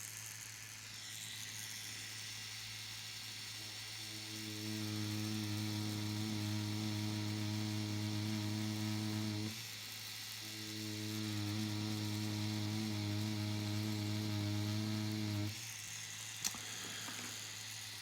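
Electric tattoo machine running with a 5RL needle while lining a design, a steady low buzz. It grows louder in two stretches of about five seconds each, with a short break between, as the lines are drawn.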